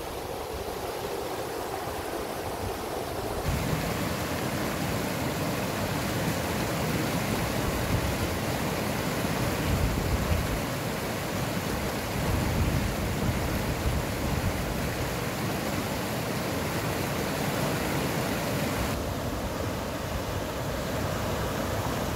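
Steady rush of a small mountain river's water running over rocks. It jumps louder about three and a half seconds in, and its hiss thins a little near the end.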